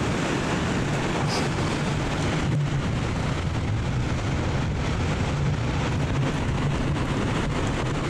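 Steady wind noise on the microphone over the continuous wash of ocean surf breaking against rocks.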